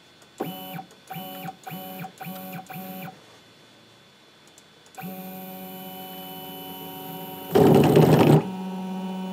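Stepper motors of a mostly-printed CNC (MPCNC) router being jogged: five short moves in the first three seconds, each a brief whine that swells and dies away. From about five seconds in, a longer move gives a steady, even whine, broken a little before the end by a loud rough noisy burst of under a second.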